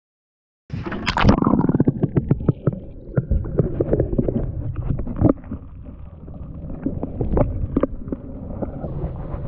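Handling noise from a hand gripping and moving the camera: irregular rubbing and knocking right on the microphone over a deep rumble, starting abruptly about a second in.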